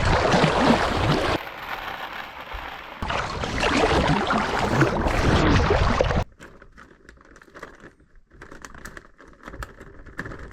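Water splashing and sloshing around a swimmer in two loud stretches. About six seconds in it drops suddenly to a much quieter, muffled stretch with faint scattered crackles.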